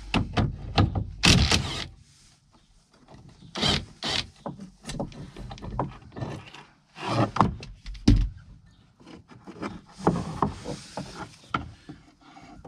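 Irregular metallic clicks and knocks of a wrench and loose hardware as the nut on the gas cylinder's bottom mount is undone and the gas cylinder is pulled off the pilot control pedestal. The sounds come in short clusters with quiet gaps between them.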